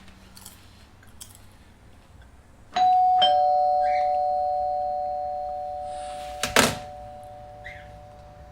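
Doorbell chime ringing a two-note ding-dong, a higher note followed half a second later by a lower one, both ringing on and fading slowly. A sharp thud cuts in about four seconds after the chime.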